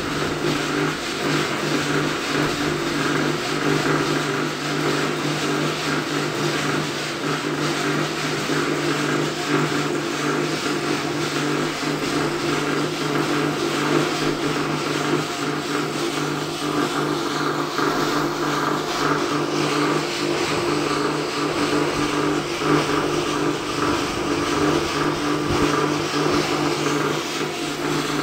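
Drum coffee roaster running steadily during a dark roast: a constant low motor and fan hum with the beans tumbling in the turning drum.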